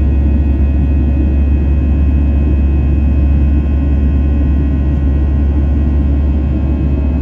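Airbus A320 cabin noise in flight, heard at a window seat beside the engine: a loud, steady, deep rumble of the jet engines and airflow, with faint steady tones above it.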